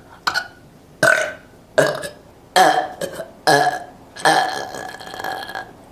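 A woman burping over and over: a quick run of about six belches less than a second apart, the last one drawn out for more than a second.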